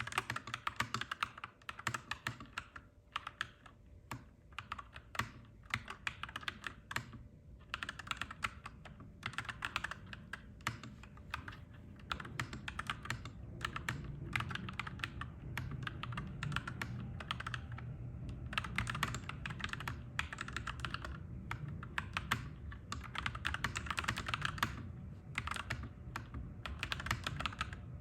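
Clacky mechanical keyboard typing in quick runs of keystrokes, with a few sparser, slower stretches between them. A low rumble swells in the background through the middle and fades near the end.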